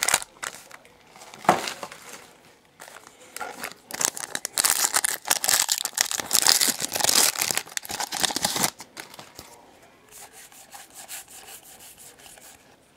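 Plastic and foil wrapping on a blaster box of trading cards being torn open and crinkled by hand, with the loudest, densest crinkling in the middle few seconds and softer rustling before and after.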